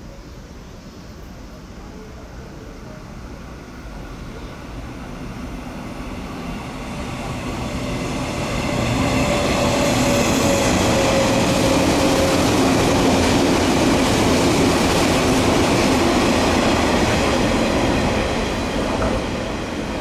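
A 485-series electric train passing: its running noise and wheels on the rails build up over several seconds, stay loud for most of the second half, then begin to fade near the end.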